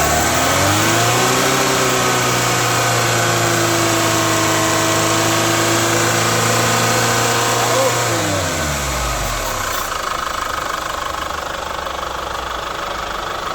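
Chevrolet Captiva FL diesel engine revved up and held at about 3,500 rpm for several seconds, then dropping back to idle about eight seconds in. At this speed the turbo makes the growling noise ("ngorok") that the mechanics trace to a leaking turbo whose actuator lever does not move.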